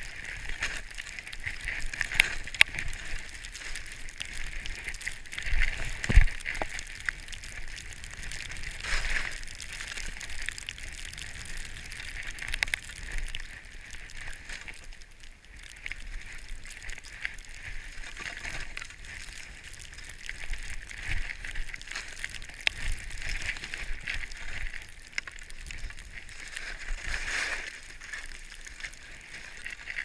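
Skis hissing and scraping through fresh snow on a downhill run, a steady rough rushing with frequent small clicks and knocks and an occasional louder thump.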